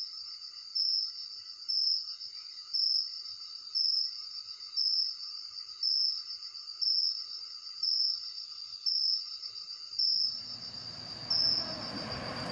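Insects chirping: a steady high trill with a louder chirp about once a second. About ten seconds in, a faint hiss rises beneath it.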